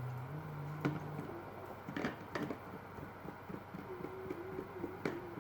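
A few sharp clicks and knocks from handling small hard parts, with a steady hum that steps down in pitch and stops about a second in.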